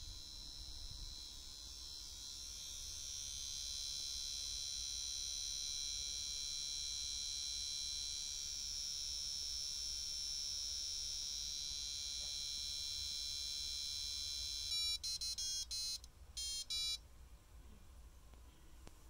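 Toy microwave timer's buzzer droning a steady electronic tone, imitating a microwave running while the countdown runs. About fifteen seconds in it stops and plays a short melody of quick beeps at changing pitches, a brief pause, then two more beeps: the end-of-countdown signal.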